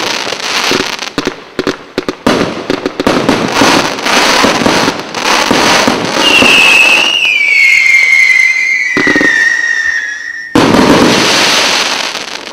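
Kimbolton 'Get In!' multi-calibre firework cake firing its whistle finale. Rapid shots and crackling breaks come for about six seconds, then a loud whistle falls slowly in pitch for about four seconds. A sudden loud crackling burst follows and fades away.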